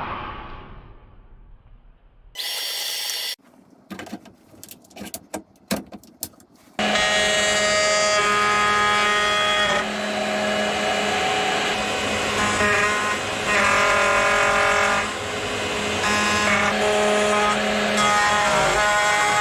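A brief burst of a power tool and some knocks, then a power tool running steadily and cutting wood, with a constant motor whine over the cutting noise.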